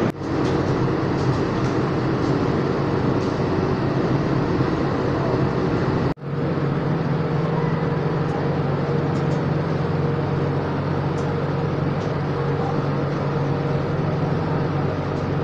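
Steady mechanical hum of a train standing at a station, with no words. It breaks off for a moment about six seconds in, then carries on as a steady low drone inside an air-conditioned passenger coach.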